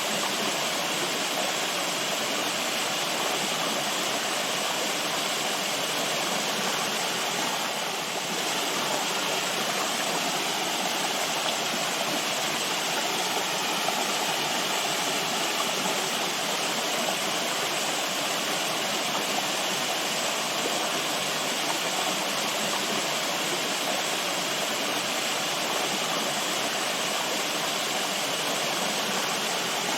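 Running water flowing steadily, an even rushing with no breaks or changes.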